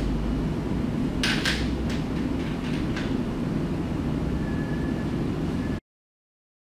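Small metallic clicks and scrapes of a MIG/MAG welding torch's contact tip being screwed back into its holder, with a quick cluster of clicks about a second in, over a steady low hum. The sound cuts off to silence near the end.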